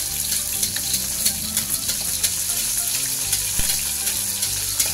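Whole snakehead fish frying in hot oil in a wok while it is basted with a spatula: a steady sizzle with frequent sharp crackling pops.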